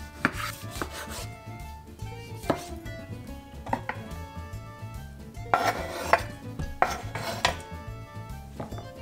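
Chef's knife chopping a tomato on a bamboo cutting board: a series of sharp knocks of the blade on the board, then a noisier patch of scraping and clatter as the pieces go into a stainless steel bowl, over background music.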